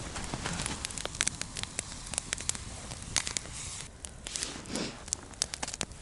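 Wood campfire crackling, with many sharp, irregular snaps.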